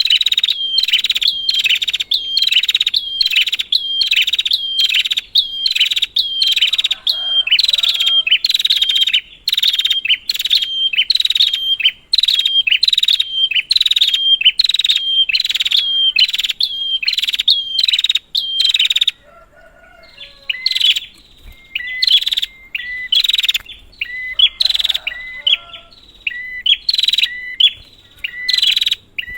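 Prenjak (prinia) singing a fast, even series of sharp, dropping chirps, about two a second. About two-thirds of the way through it breaks off, then resumes with sparser, lower notes.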